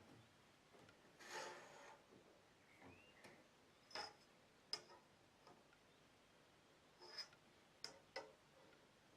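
Very faint workshop handling sounds: a short rub about a second in, then a handful of light clicks and taps, two of them close together near the end.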